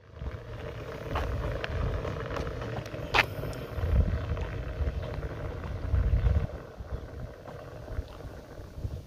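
A small motor running steadily with a constant hum, under gusts of low rumble from wind on the microphone; a couple of sharp clicks about one and three seconds in.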